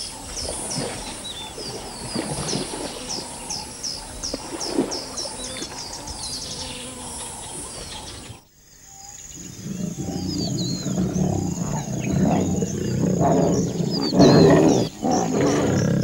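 A bird calling a quick series of short, falling high chirps that come faster near the middle. After a sudden break about 8 seconds in, lions growl over a buffalo carcass, loudest about 14 seconds in.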